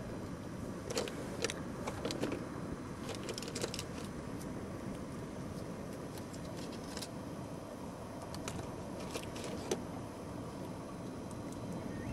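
Steady background noise with scattered light clicks and taps, about a dozen spread irregularly through it.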